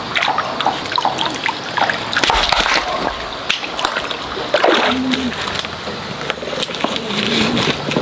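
Splashing and sloshing in a shallow stream as a stone is lifted out of the water and someone wades through it, with short irregular splashes throughout.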